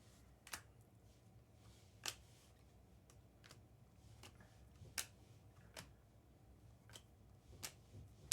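Trading cards from a 2024 Panini Optic football pack being flipped and slid in the hand, with quiet, sharp card clicks at irregular intervals, roughly one a second.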